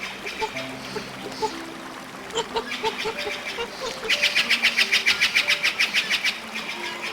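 Birds calling: scattered short chirps, then from about four seconds in a loud, rapid rattling call of about eight pulses a second that lasts about two seconds.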